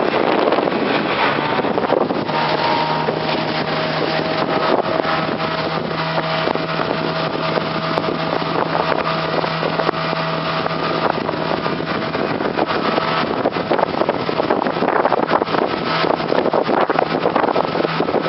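Motorboat under way with wind rushing over the microphone. A steady engine hum stands out through the middle stretch.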